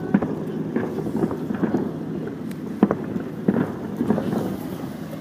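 Distant fireworks going off as scattered sharp pops, the sharpest nearly three seconds in, over a steady low background rumble.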